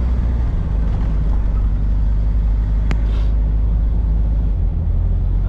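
Pickup truck driving along a road: a steady low engine and road drone, with one sharp click about three seconds in.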